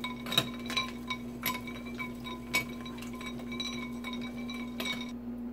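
Ice cubes and a metal spoon clinking against a ceramic bowl as wet greens are squeezed out in ice water: a dozen or so sharp clinks with a short ring, stopping about five seconds in. A steady low hum runs underneath.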